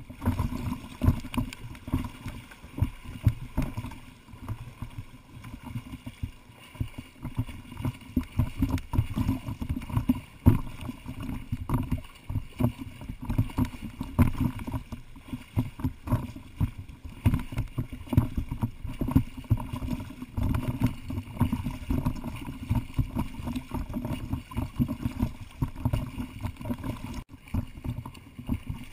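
Lake water sloshing and splashing around a camera towed at the waterline behind a swimmer, in constant irregular choppy surges, with splashing from the swimmer and dogs paddling ahead.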